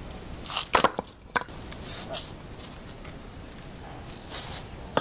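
Bricks and stone slabs knocking and scraping as they are handled on a concrete curb: several sharp knocks in the first second and a half, and another near the end.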